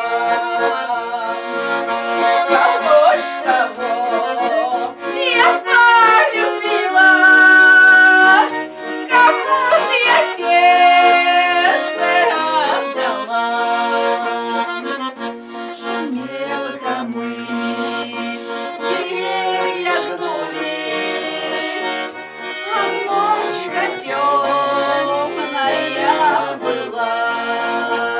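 Accordion playing a Russian folk-song melody with chords, without singing.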